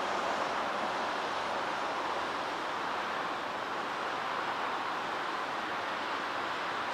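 Steady outdoor ambient noise: an even hiss with no distinct events standing out.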